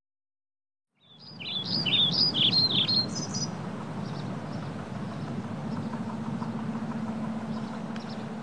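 Birds chirping and twittering after about a second of silence, busiest just after they start and then thinner, over a steady background hiss with a low hum.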